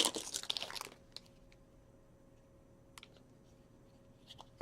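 A trading card pack's wrapper being torn open and crinkled, loud for about the first second. After that come only a few faint light clicks as the cards are handled.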